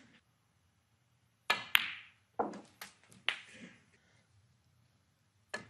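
Snooker table sounds in a hushed arena: several short, sharp clicks and knocks in the middle, then a crisp click near the end as the cue tip strikes the cue ball.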